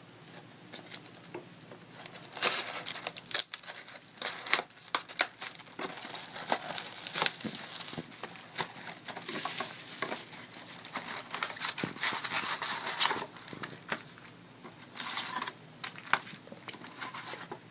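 Plastic shrink wrap being torn off a sealed box of trading cards and crumpled, crinkling and tearing in irregular bursts that start about two seconds in.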